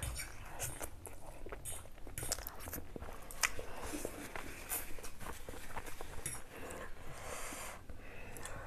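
Close-up eating sounds: instant noodles being slurped and chewed, with wet mouth noises and scattered sharp clicks.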